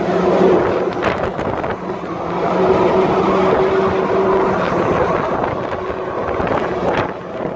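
Engine-driven pump of a high-pressure sewer jetter running steadily at one pitch, under the rush of water from the jet hose and muddy water pouring through a concrete culvert.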